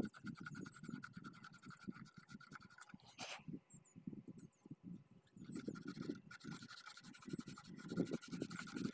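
Irregular scratching and rubbing from hand-cleaning the brass slip rings and brush block of a center pivot irrigation collector ring.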